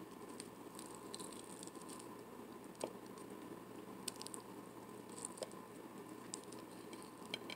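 Faint eating sounds: a few soft, scattered clicks and mouth noises as a barbecued beef rib is bitten into.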